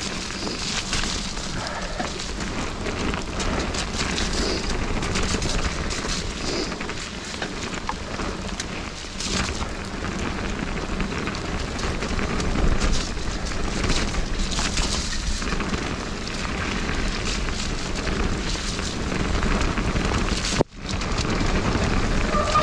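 Mountain bike riding fast down a wet dirt trail: a steady rush of tyre noise on the wet ground with frequent clicks and rattles from the bike. It cuts off abruptly about two seconds before the end.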